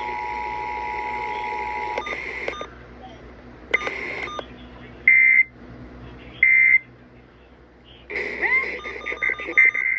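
Emergency Alert System audio: the steady two-tone attention signal cuts off about two seconds in, followed by a string of short, buzzy digital data bursts and beeps.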